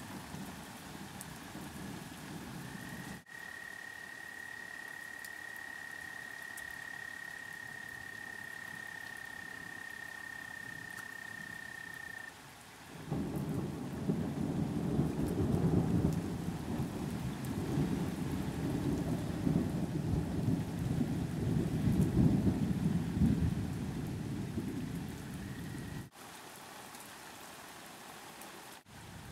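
Steady rain falling, with a thin high-pitched steady tone through the first part. About halfway through, a long low rumble of thunder starts and rolls on for about thirteen seconds as the loudest sound.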